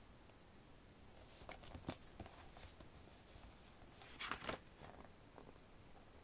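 Faint handling of a paper photo book: a couple of soft taps in the first two seconds, then a short rustle of the cover and glossy pages being flipped open about four seconds in.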